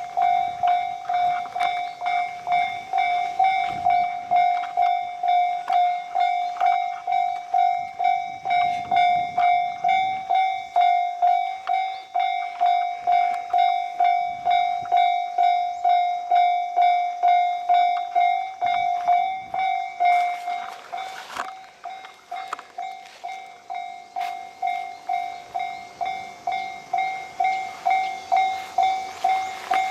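Japanese railway level-crossing warning bell ringing steadily at about two strokes a second, while a train runs over the crossing with rumbling wheel clatter that dies away about two-thirds of the way through.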